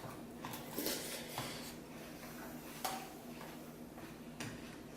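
Spoons clicking and scraping against cereal bowls while eating, a few scattered light taps.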